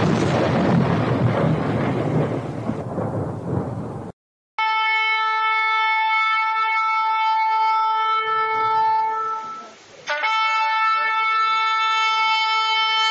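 A crash of thunder for about four seconds that cuts off suddenly, then a long steady blast on a horn, a short break about ten seconds in, and a second long blast.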